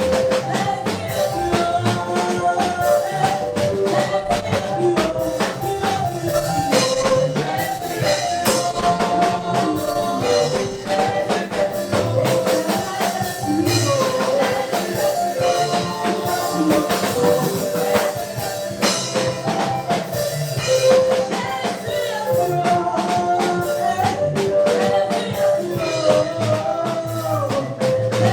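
Live gospel praise music: a choir singing over a drum kit with a tambourine keeping a steady, driving beat.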